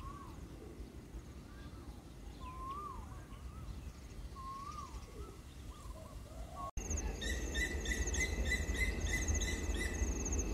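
Birds calling with short swooping whistled phrases about every two seconds. After an abrupt cut about two-thirds of the way through, insects take over, chirping steadily at a few pulses a second over a low rumble.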